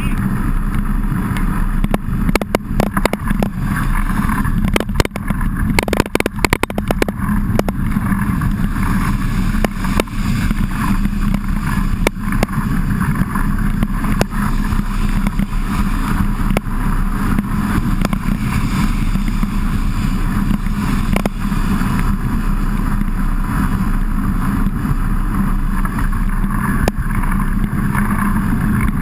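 Steady rush of wind and riding noise on a bike-mounted action camera's microphone as a mountain bike rolls along in heavy rain. A cluster of sharp knocks and rattles comes about two to seven seconds in, with a few single clicks later.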